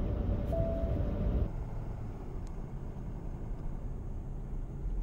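Road and engine noise heard inside the cab of a Ford Super Duty pickup with a 6.7-litre diesel, driving along a highway. About one and a half seconds in, the sound drops abruptly to a quieter, steadier rumble.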